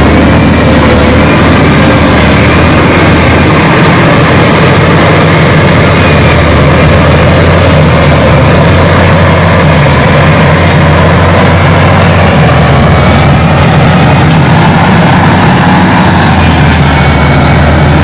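Wheel loader's diesel engine running steadily with a low hum as the machine drives and works on the dirt road.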